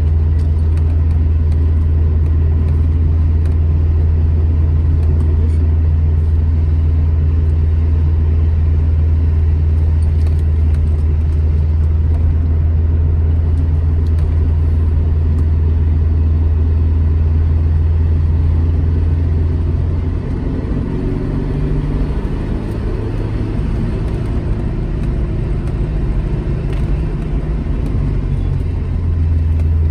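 Alfa Romeo GT Junior's twin-cam four-cylinder engine pulling steadily under load while driving. About twenty seconds in it eases off, the note dropping and going rougher, and near the end it picks up again.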